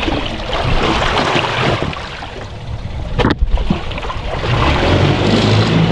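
Wind and sea noise on the open deck of a fishing boat, with one sharp knock a little past the middle. A low steady engine hum from the boat comes in near the end.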